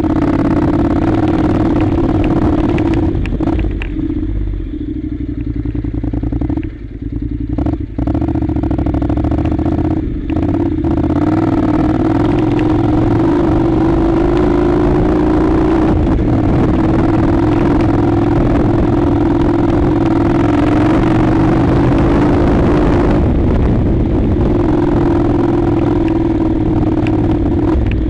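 Honda NC700's parallel-twin engine running steadily while the motorcycle rides up a loose gravel track, with stones clattering under the tyres. The engine eases off briefly a few times about 7 to 11 seconds in, then pulls steadily again.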